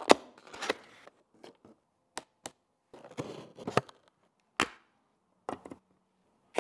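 A string of crisp taps, clicks and short scrapes as computer parts are unboxed and fitted: a cardboard motherboard box lid lifted open, a utility knife slitting the seal on a CPU box, and a CPU seated in its motherboard socket. Each sound stands alone, with silence between them.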